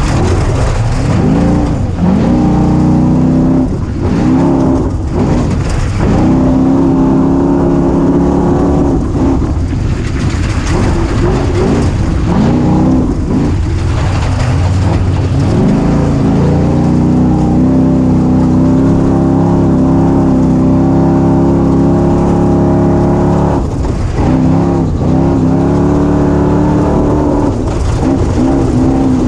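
A 250 motorcycle engine under way, revving up and down over and over as the throttle is worked. It holds a steady high pitch for several seconds past the middle, then drops off briefly and picks up again.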